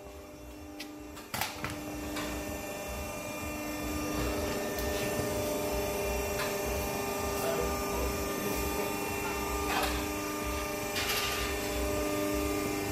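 Toyota Corolla E11's turbocharged 4E-FTE four-cylinder idling steadily through a 3-inch stainless steel exhaust with Simons Turbonett mufflers, a low even hum that grows louder over the first few seconds. A few short knocks come through, one about a second in and more near the end.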